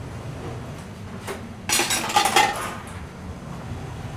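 Dishes and metal utensils clinking in a kitchen: a single click, then a short burst of clinks with a brief ring about two seconds in.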